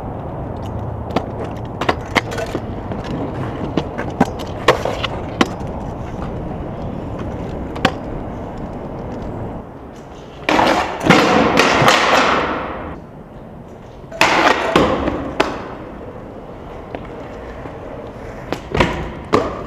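Skateboard wheels rolling on concrete, clicking over joints and cracks. About ten seconds in comes a loud scraping of the board against rough concrete that lasts about two seconds and fades, then a second, shorter scrape a couple of seconds later, with a few sharp clacks near the end.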